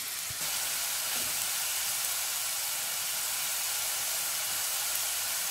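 Ginger-garlic paste sizzling in hot oil in a nonstick pan: a steady frying hiss as the paste cooks toward golden.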